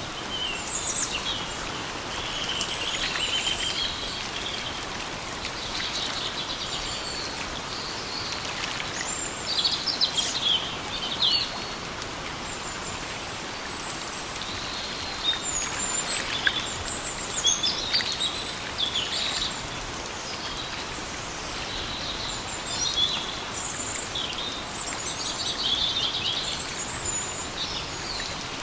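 Steady rain falling in a forest, with birds singing throughout: many short chirps and quick trills coming and going over the even hiss of the rain.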